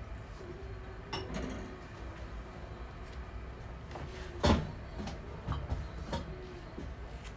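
A few scattered knocks and clunks, like things being handled or shut, over a low steady background; the loudest comes about four and a half seconds in.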